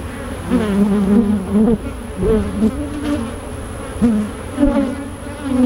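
Honeybees buzzing around an opened hive, several flying close past the microphone one after another, so the buzz keeps swelling and bending up and down in pitch.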